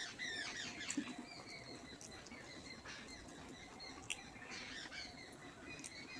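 Small birds chirping and twittering, busiest in the first second and then sparser, with a few sharp clicks in between.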